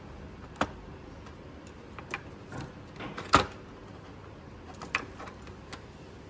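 Scattered clicks and knocks of hard plastic as a small cooling fan is handled and worked at inside a projector's plastic case, the loudest knock about three and a half seconds in.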